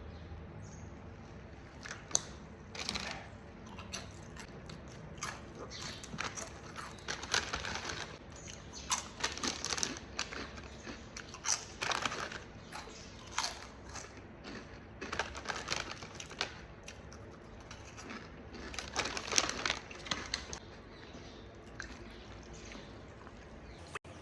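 Crisp potato chips being bitten and chewed close to the microphone: irregular bursts of crunching that stop a few seconds before the end, leaving a steady low hiss.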